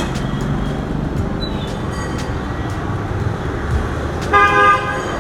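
Steady street traffic noise, with a vehicle horn honking once briefly a little over four seconds in.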